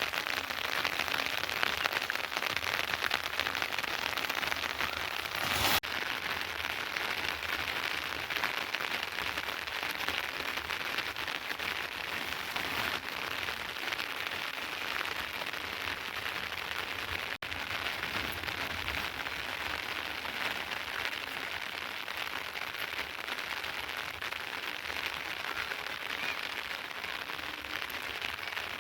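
Steady rain falling, a dense even patter, with one short sharp noise about six seconds in.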